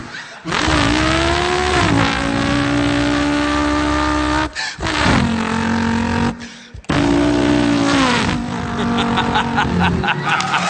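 A man imitating a V8 car engine with his voice, in three long revving passages: the pitch climbs, drops as if changing gear, and holds steady, with short breaks between passages. Clapping starts near the end.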